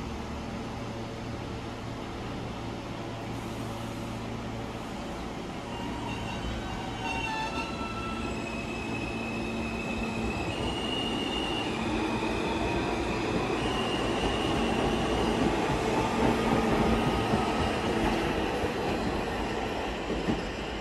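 R160B subway train moving along the tracks: its steel wheels squeal in several high, steady tones from about six seconds in, while the rumble of the wheels on the rails grows louder toward the end and then eases off.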